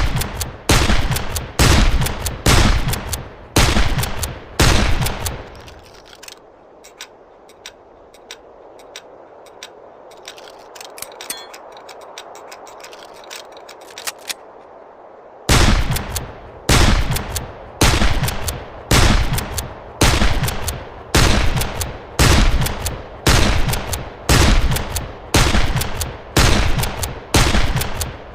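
1860 Henry lever-action rifle firing in rapid succession, about one and a half shots a second, each shot with a short ringing tail. The firing stops about five seconds in, leaving a quieter stretch of low steady noise for about ten seconds, then resumes at the same pace.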